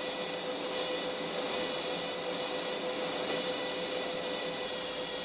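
High-frequency arc starter of a TIG welder with the torch live: the HF spark jumps from the tungsten electrode to a fingertip without touching it, making a steady hissing buzz with a faint hum underneath. The buzz wavers in level a few times in the first three seconds.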